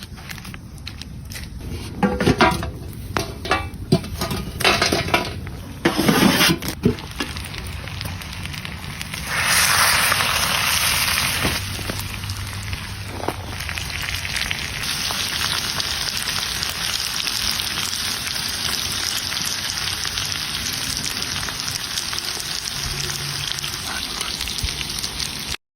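Food frying over an open fire. For the first several seconds there are irregular knocks and clatter; then a steady sizzle starts about nine seconds in, loudest at first.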